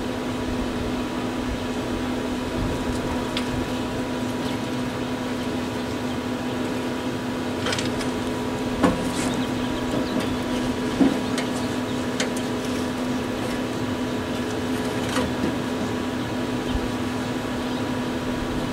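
Steady hum of a small electric fan motor, the draft fan of a gravity-fed charcoal smoker running. A couple of light knocks come about halfway through, with a few faint clicks around them.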